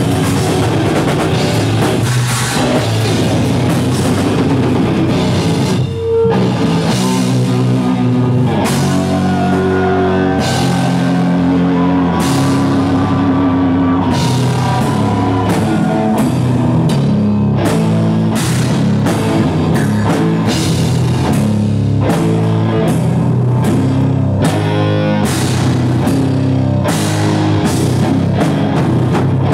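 A live heavy metal band plays with distorted guitars, bass and drum kit. The music breaks off for a moment about six seconds in, then comes back in.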